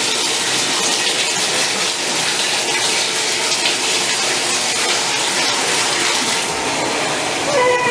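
Water running steadily into a bathtub, a continuous even rush.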